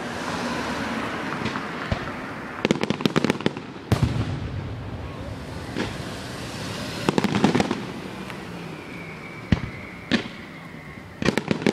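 Fireworks display: single sharp bangs of bursting shells, mixed with several quick runs of rapid crackling from crackle effects.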